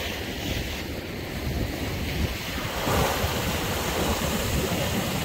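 Sea waves surging and breaking against a rock ledge. A larger wave crashes about three seconds in.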